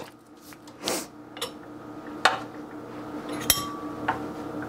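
A spoon scooping crème fraîche from its tub, with a few scattered clinks and scrapes against the container; the sharpest clink comes a little past halfway.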